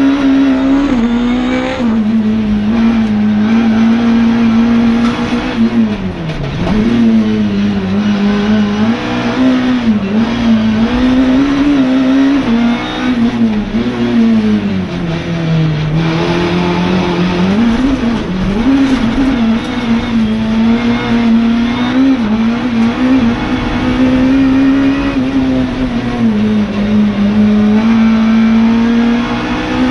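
Ford Fiesta Mk6 Super1600 rallycross car's 1.6-litre four-cylinder engine at racing revs, heard inside the cabin. Its pitch rises and falls continuously with gear changes and braking, with deep drops about six and sixteen seconds in.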